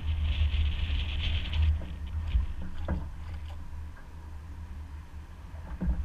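A baitcasting reel being cranked to retrieve a lure, a whirring that stops about a second and a half in, over a steady low outdoor rumble. A few light clicks follow.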